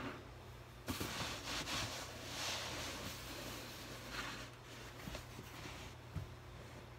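Uneven rustling and rubbing of clothing and a balloon stuffed under a shirt and vest as it is handled, with a soft knock about six seconds in.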